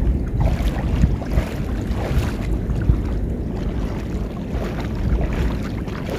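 Wind buffeting the microphone: a steady, loud low rumble with gusty rises and falls.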